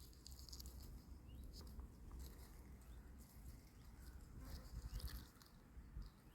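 Faint outdoor ambience: light, irregular rustling and crackling over a low steady rumble, with a few tiny high chirps.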